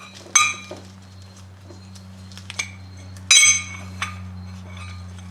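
Steel ball-joint press adapter cups clinking against each other and other metal tools as they are handled and swapped. There are a few sharp ringing clinks, the loudest about three seconds in, over a steady low hum.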